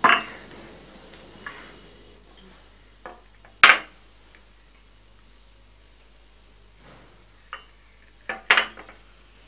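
China teacups and saucers clinking as they are set down from a tray onto a glass-topped table: a handful of sharp clinks, the loudest a little after three and a half seconds in and a quick pair near the end.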